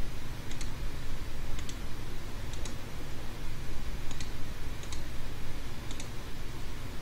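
Computer mouse button clicks, about six of them, each a quick press-and-release pair, coming roughly once a second at an uneven pace as wires are placed. A steady low hum runs underneath.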